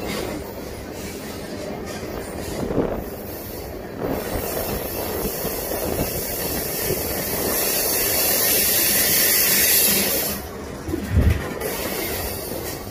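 Freight cars of a long manifest train rolling past on a curve: a steady rumble and rattle of wheels on rail, with a high wheel squeal and hiss that builds through the middle and then drops off. A short, heavy low thump about eleven seconds in is the loudest moment.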